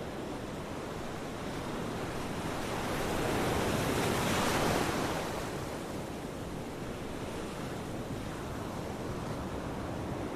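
Ocean surf: a steady wash of waves, with one wave swelling to its loudest about four seconds in and falling away over the next second or so.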